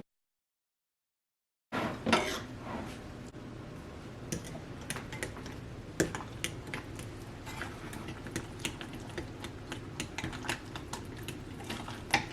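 After about a second and a half of dead silence, a utensil clinks and taps irregularly against a mixing bowl as thick pancake batter of cottage cheese, eggs and flour is stirred.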